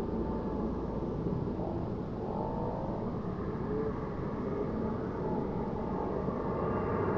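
Jet turbine of a large radio-controlled model jet, a B300F, heard at a distance in flight as a steady rumble with a faint wavering whine, growing slightly louder near the end.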